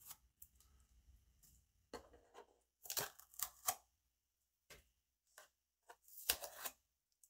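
Faint rustles and small clicks of tape tabs being peeled off a Casio fx-CG50 calculator's plastic slide-on case, in two short clusters with quiet between.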